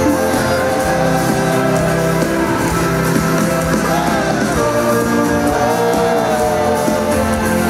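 Pop-rock band playing live at full volume, with sung melody over guitars, bass and drums, recorded from among the audience.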